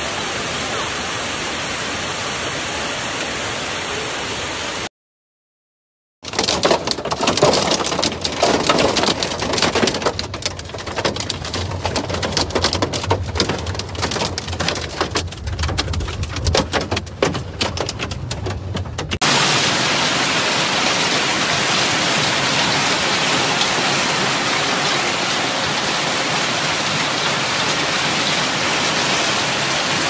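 A heavy downpour of hail and rain, a steady rushing noise. After a short break, hailstones drum on a car's roof and windscreen, heard from inside the car as a dense run of sharp hits. About two-thirds of the way through, the steady rush of heavy hail and rain returns.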